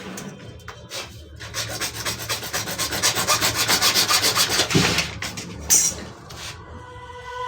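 Fast, even scraping strokes, about ten a second, from hand work on a plumbing pipe fitting. They run for a few seconds, then stop, followed by a short hiss.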